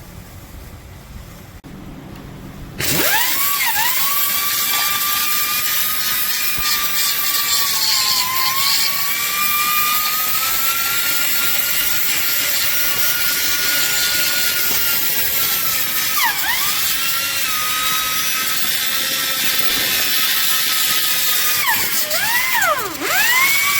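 Electric grinder working on bare car-body steel: a loud whine over a harsh hiss, its pitch dipping sharply several times as the disc is pressed into the metal and sagging slowly while it grinds.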